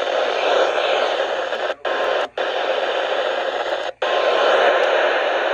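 Radio receiver hissing with loud static in place of the weather broadcast, a sign the signal has been lost. The static cuts out briefly three times, twice close together near the middle and once more a little later.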